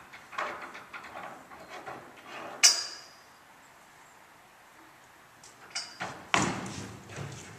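Metal rear bar of a horse trailer rattled by hand against its fittings: a run of clattering knocks, a sharp ringing metal clank about two and a half seconds in, then after a pause a few clicks and a louder run of clanks with heavy thuds near the end. The bar is rattled but not closed.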